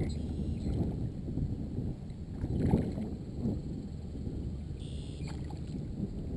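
Wind buffeting the microphone over water sloshing against a kayak, with splashing from a hooked snook thrashing at the surface beside the boat.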